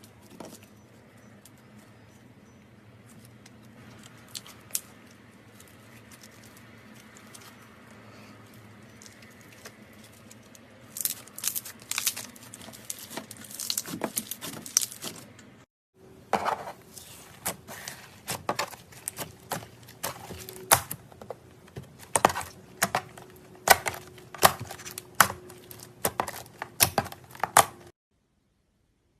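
Slime being handled. Quiet, soft handling at first; from about eleven seconds in, a run of sharp crackling clicks and pops as the slime is pressed and poked. There is a brief break around sixteen seconds, and the sound stops abruptly near the end.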